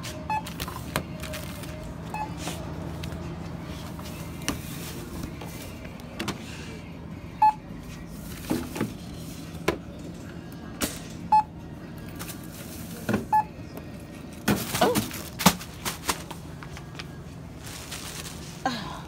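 Store checkout beeping as items are scanned: several short single-pitched beeps a few seconds apart, over a steady low hum, with knocks and clatter of goods being handled, loudest near the end.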